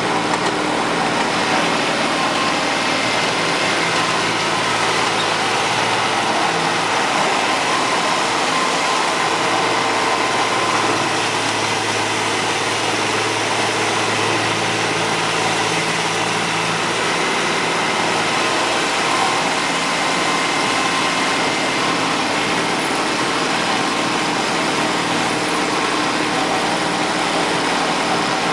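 Miniature GP40-outline locomotive's engine running steadily while the train is on the move, heard from the car just behind it, along with a steady rush of wheel and track noise.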